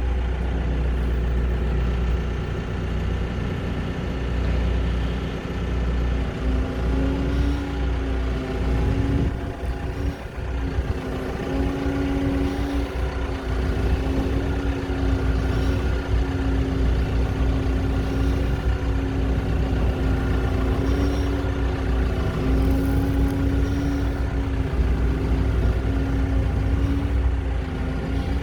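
Diesel engine of a Lonking 84C backhoe loader, a Perkins Stage V, running steadily. About six seconds in, a steady whine joins it and wavers slightly in pitch.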